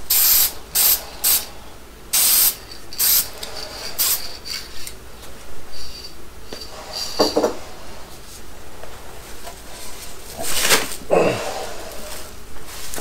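Aerosol spray can of engine paint fired in a string of short spray bursts, most of them in the first four seconds and more near the end, with quieter handling and rustling between.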